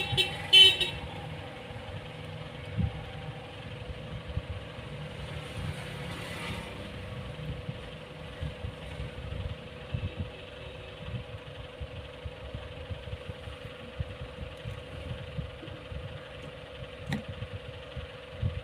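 Road traffic in the background: vehicle engines running and passing, with uneven low thuds. Over it runs a steady hum, and two short horn beeps come right at the start.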